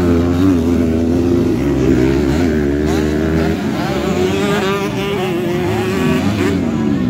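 Several motocross dirt bike engines running and revving together, their pitch rising and falling as the riders throttle on and off.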